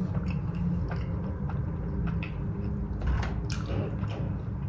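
Close-miked chewing of a mouthful of Cheetos-topped cheeseburger, with small wet mouth clicks scattered through, over a steady low hum.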